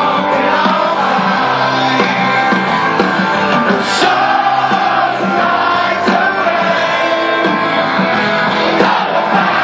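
Live rock band playing loud, with singing over electric guitars and drums.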